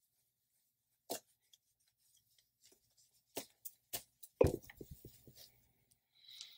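Microfiber cloth wiping a laptop screen: soft rubs and scattered light clicks, with a dull thump about four and a half seconds in followed by a few small taps.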